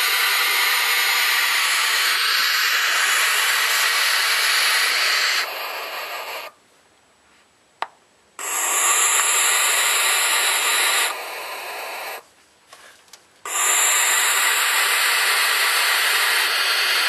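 Barn owl chicks giving loud, harsh hissing calls, several overlapping into a near-continuous hiss: the food-begging calls of nestlings. The hissing fades and stops twice, for nearly two seconds about a third of the way in, with a single click in that pause, and for about a second a little past the middle.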